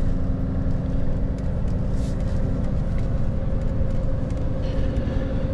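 Diesel engine of a loaded grain road-train prime mover pulling slowly, heard from inside the cab: a steady low rumble with a steady whine running through it. A lower hum fades out about a second and a half in.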